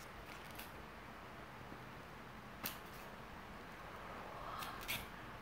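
A few faint clicks and taps from handling a polystyrene foam natto tray, the loudest a little under three seconds in, over quiet room tone.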